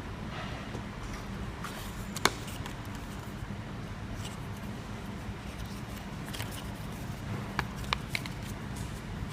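Smartphone packaging being handled: soft rustles and a few sharp clicks and taps, the loudest about two seconds in and a quick run of three near the end, over a steady low hum.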